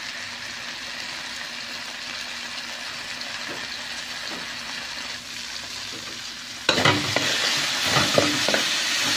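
Garlic, onion and tomato sizzling in oil in a wok while a metal spoon stirs them. About two-thirds of the way through the sizzle suddenly gets louder, and the spoon scrapes and knocks against the pan in quick strokes.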